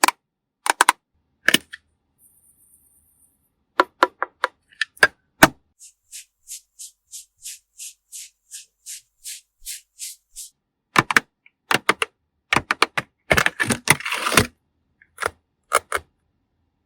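Makeup tools and cosmetic containers handled close to the microphone: sharp clicks and taps, then a run of about a dozen short, even hissing strokes at about three a second, then a dense cluster of clicks and rustling.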